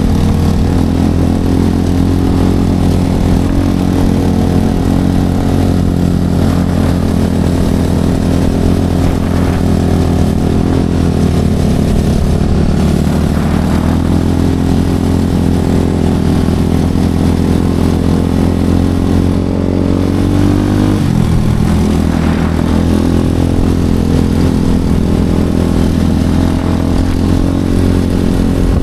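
Enduro motorcycle engine running continuously, its pitch wavering with the throttle, dropping and rising again about two-thirds of the way through.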